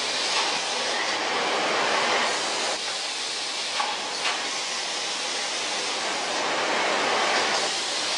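Steady running noise of a plastic-bottle conveyor and autoclave loading machinery on a production line, with two short clicks about four seconds in.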